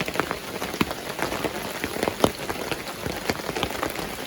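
Heavy rain falling on the shelter top overhead, a steady hiss with many sharp individual drops striking close by.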